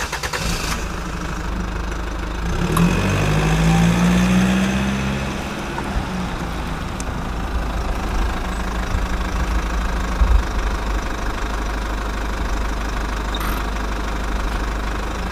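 Steady engine-like running sound with a low rumble, its hum rising and falling about three to five seconds in.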